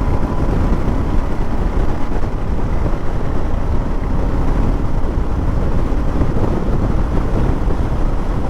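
Motorcycle riding at highway speed: steady engine and road noise, with wind buffeting the microphone.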